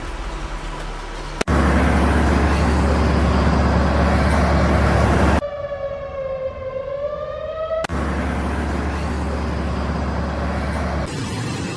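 A siren wails for about two seconds in the middle, its pitch dipping and then rising. Before and after it comes loud rushing noise with a heavy low rumble, and each sound cuts off abruptly.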